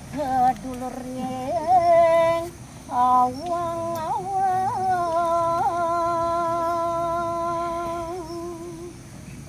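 A single voice sings a slow, ornamented sacred chant, with short gliding phrases and then one long held note that carries small flicks of ornament and fades near the end.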